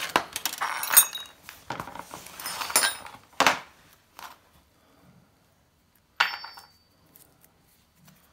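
Small hard parts being handled on a wooden workbench: a plastic spacer ring and a small metal ring picked up, turned over and set down, giving a quick run of clicks and knocks in the first few seconds. About six seconds in comes one sharper clink that rings briefly.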